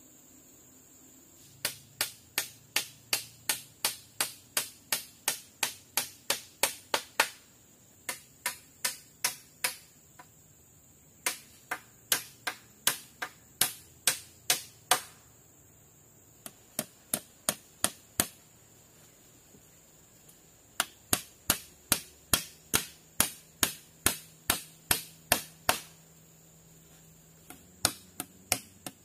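Rapid, evenly paced strikes of a hand tool on wood, about three a second, in runs of several seconds broken by short pauses.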